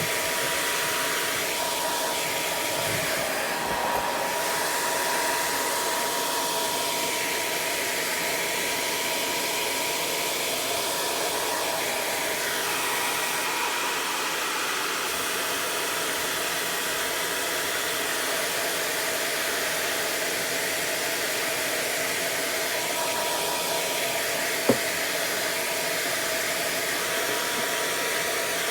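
Hair dryer blowing steadily, with a thin steady whine in its noise. A single sharp click comes about twenty-five seconds in.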